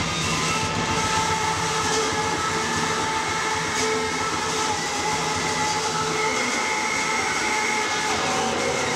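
Live improvised noise music: bowed double bass and an amplified string instrument run through effects pedals, making a dense, steady grinding texture with several held high tones over a rumble.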